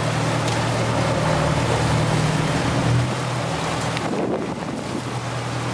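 Motor boat's engine running with a steady low drone, over wind buffeting the microphone and water rushing past the hull. The drone weakens about three seconds in.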